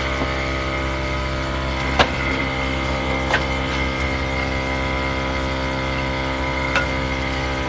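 An engine idling with a steady hum, with a few sharp metallic knocks about two, three and seven seconds in.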